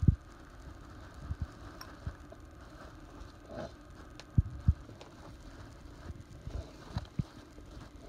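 Scattered soft low thumps, about eight at uneven intervals, the loudest two close together near the middle, from a caique parrot tussling with a hand-held paper towel on a cloth-covered tabletop, with a few faint clicks between.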